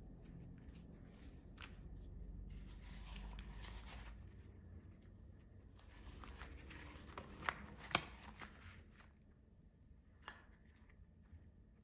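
Yellow rubber household gloves being handled and pulled onto the hands: soft rustling and crinkling of the rubber, with a few sharp clicks, the loudest two close together about two-thirds of the way through.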